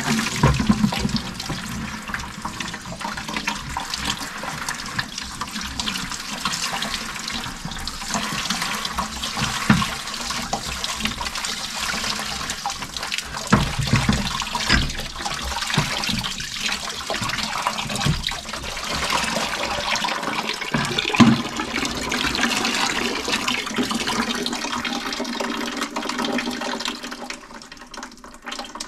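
Water left in the house supply pipe pouring and splashing into a plastic bucket as the pressure reducing valve's union is unscrewed, with a few knocks along the way. The flow tails off near the end as the line finishes draining.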